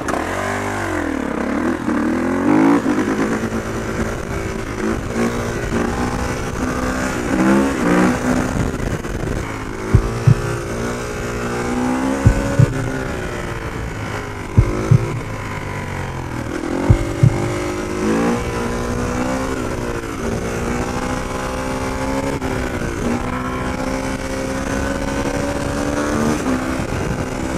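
2020 Kawasaki KX450 dirt bike's single-cylinder four-stroke engine accelerating and shifting through the gears: its pitch climbs and drops back again and again, then holds steadier near the end. A handful of short, sharp pops come in the middle.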